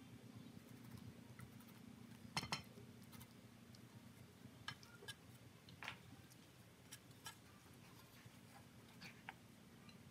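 Near silence: a faint low room hum with a few light clicks and taps, a small cluster of them about two and a half seconds in and single faint ones scattered after.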